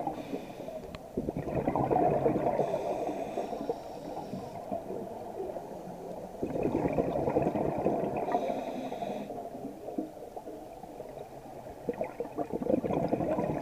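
Scuba diver breathing through a regulator underwater: three bursts of bubbling exhalation, each a few seconds long and about five seconds apart, with quieter stretches between them.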